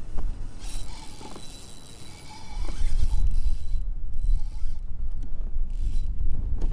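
Spinning reel cranked to retrieve line, a mechanical whirring with a faint whine, for about three seconds. A low rumble grows from about halfway through and is the loudest sound.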